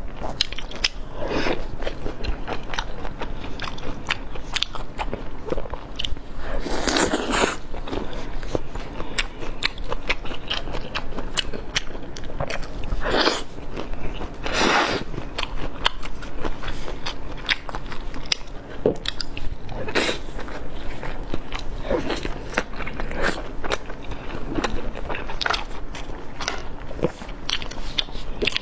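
Close-miked eating: a steady run of biting and chewing with crisp crunches and crackles, broken by a few louder, longer bites.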